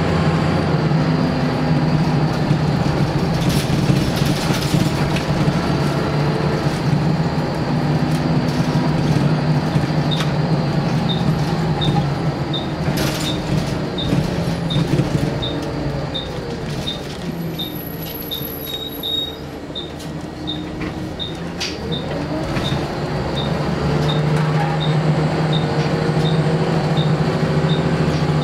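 Scania L94UB single-deck bus engine heard from inside the saloon, working hard under load. In the middle it eases off, its note bending up and down, then it pulls hard again near the end. A light tick about once a second runs through the second half.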